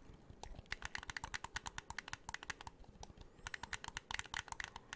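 Game controller buttons pressed in quick succession, a rapid run of sharp plastic clicks with a short break about three seconds in.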